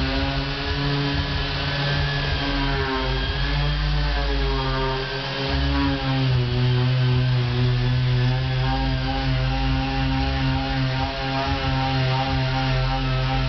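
Several handheld electric power tools, sanders and grinders working the wooden hull, running at once. They make a steady motor whine whose pitch dips and recovers as the tools are pressed into the wood.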